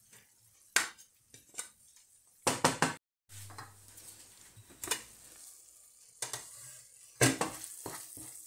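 Wooden spoon stirring taco filling in a non-stick frying pan: irregular sharp knocks and scrapes of the spoon against the pan, with a quick cluster of them about two and a half seconds in, over a faint sizzle from the hot pan. The sound cuts out briefly about three seconds in.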